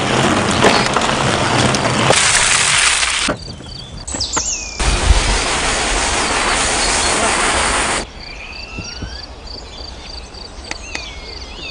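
Rushing wind and tyre noise of a mountain bike going down a dirt trail, cutting off after about three seconds. From about five seconds in, the hiss of a Kärcher OC3 portable washer spraying water onto a bike frame, stopping abruptly at about eight seconds. Then quieter outdoor ambience with bird chirps and a steady high repeating insect-like tick.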